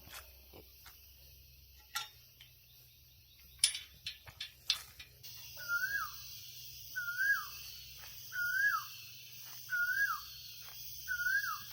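A bird calling five times from about halfway through, about one call every second and a half; each call is a short note that rises and then slides down. A steady, high insect buzz of cicadas comes in behind it. A few clicks and snaps are heard in the first half.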